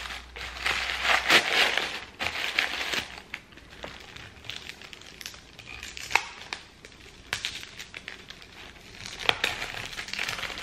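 White packing paper crinkling and rustling as hands unwrap drinking glasses, in irregular handling bursts that are busiest in the first three seconds, with a few sharp crackles later on.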